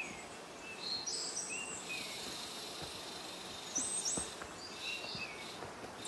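Forest birds calling, with short whistled notes and a few quick rising chirps, over a steady high insect hiss. A few faint footsteps sound on the dirt trail.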